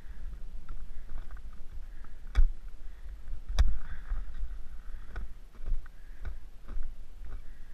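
Skis sliding slowly through churned snow with a soft scraping hiss, broken by irregular sharp clicks and knocks of poles and ski gear, the loudest about two and a half and three and a half seconds in.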